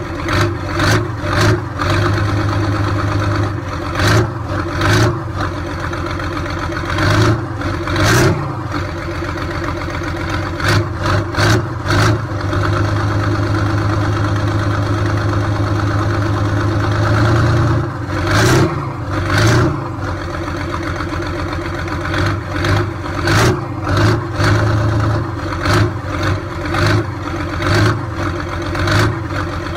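Tractor diesel engine running steadily, with short loud surges of revs every second or two, as an overturned tractor is pulled back upright.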